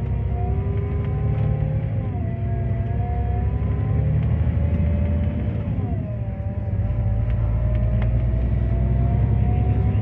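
Scania K410EB6 coach's 13-litre six-cylinder diesel engine and driveline heard from inside the cabin: a steady low drone with a whine that climbs in pitch as the coach gathers speed, drops sharply at gear changes about two and six seconds in, then climbs again.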